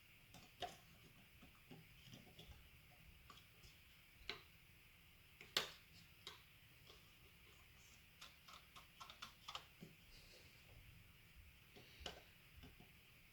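Faint, scattered clicks and taps of small gel blaster gearbox parts being handled on a workbench. The loudest click comes about halfway through, with a quick run of small clicks about two-thirds of the way in.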